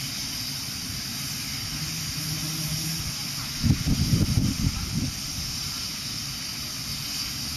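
Steady hiss of escaping steam from the JNR C61 class steam locomotive C61 2, with a louder stretch of low rumbling about halfway through.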